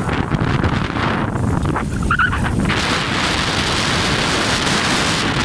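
Wind buffeting a phone microphone carried on a moving bicycle: a steady, loud rushing rumble that grows hissier about three seconds in. A brief faint high tone sounds about two seconds in.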